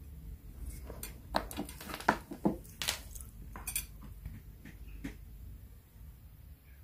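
Long pointed fingernails tapping and clicking on a hard surface: about a dozen quick, sharp clicks, thickest between one and four seconds in, then a few fainter ones.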